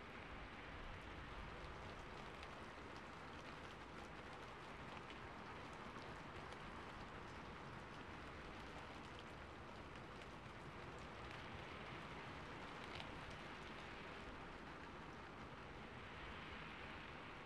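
Steady, faint rain, with scattered drops ticking.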